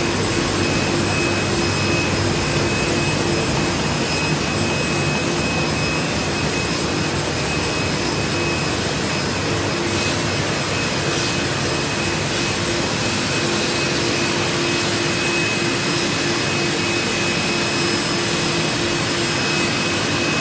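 Steady machine whir with a few held whining tones, from the running equipment around a KBA Rapida 105 sheetfed offset press, such as its air-supply blowers and cooling units. A couple of faint clicks come about halfway through.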